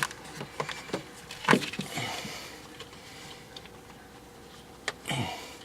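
Spark plug wire boot being pushed onto a terminal of a new distributor cap: a few sharp plastic clicks and knocks with handling noise between them, as the boot snaps home.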